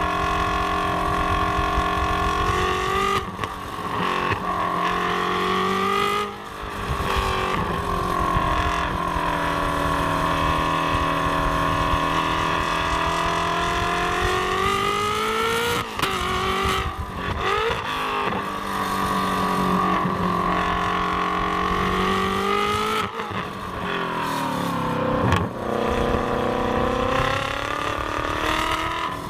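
Ferrari F430's 4.3-litre V8, fitted with a new X-pipe exhaust, running hard on a track. Its pitch climbs and falls repeatedly, with sharp breaks as it shifts gears.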